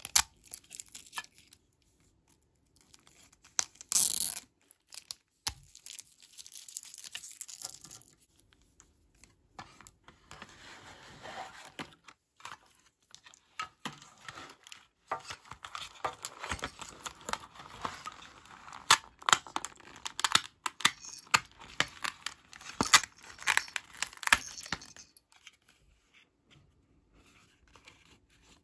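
Thin plastic wrapping and protective film crinkling and tearing as small plastic toy pieces are unwrapped by hand. There is a louder tear about four seconds in, and a long busy stretch of crinkling with light clicks and taps in the second half.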